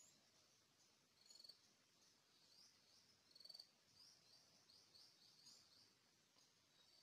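Faint forest ambience: many short, high chirps repeating throughout, with two brief rapid trills, about a second in and again about three and a half seconds in.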